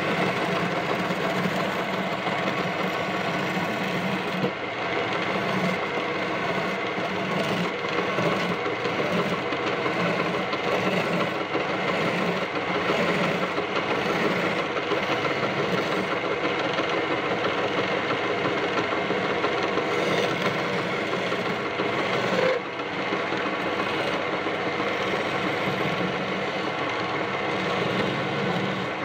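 Wood lathe running steadily while a hand-held turning tool cuts and scrapes a spinning wooden spindle, shaping beads into it: a continuous scraping over the machine's steady running.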